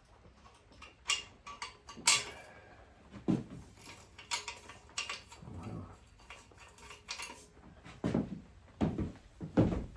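Metal hand tools and fasteners clinking and clanking during exhaust removal on a motorcycle engine: a string of sharp metallic clicks and knocks starting about a second in, the loudest about two seconds in, with several heavier knocks near the end.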